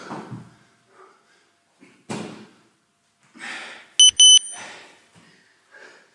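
Interval timer giving two short, loud, high-pitched beeps about four seconds in, marking the end of a 40-second work interval and the start of the rest. Before the beeps come hard, noisy breaths from a man doing burpees.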